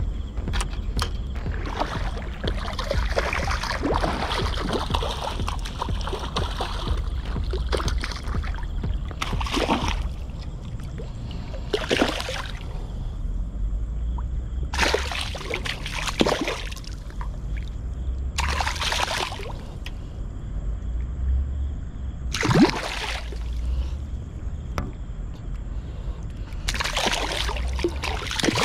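Water splashing and sloshing in short rushes every two to four seconds, over a steady low rumble.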